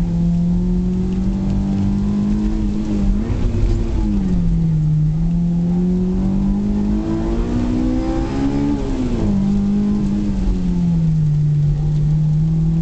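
Honda S2000's four-cylinder engine under hard driving, heard from inside the cabin. Its pitch climbs briefly about three seconds in and falls back, then rises steadily to high revs near nine seconds in before dropping and holding an even note.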